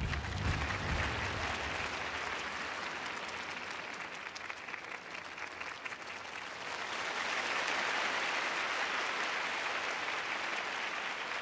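Large arena audience applauding at the end of a performance, as the last of the music dies away in the first second or so; the applause grows louder about seven seconds in.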